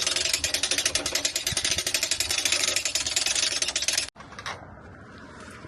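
A motor-driven machine running loudly and steadily with a fast, even rattle, cut off abruptly about four seconds in.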